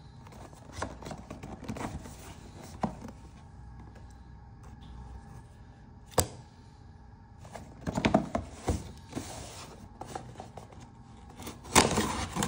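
Leatherman Arc multitool being handled, with scattered sharp metal clicks and rubbing as it is turned and its parts are worked; the loudest click comes near the end.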